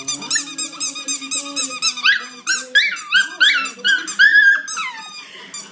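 Rubber sneaker-shaped squeaky dog toy squeezed over and over: a fast, even run of high squeaks, then slower, more uneven ones after about two seconds. Under it, a small dog growls low and steadily at the toy.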